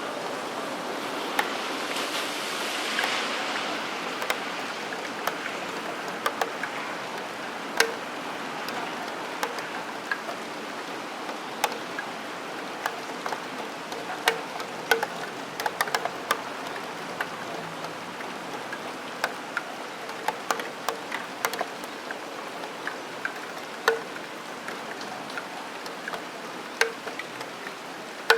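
Rain dripping onto a steel window sill in irregular sharp ticks, some with a short metallic ring, over a steady hiss of rain. The hiss swells for a couple of seconds near the start.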